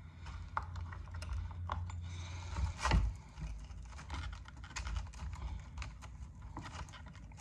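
Chainsaw chain links clicking and rattling in irregular small clicks as the chain is loosened and worked by hand around the guide bar, with a louder knock about three seconds in. The chain is sticking and won't seat in the bar's groove.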